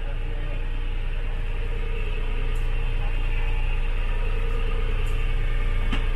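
Boat engine idling steadily, a continuous low rumble, with a brief click near the end.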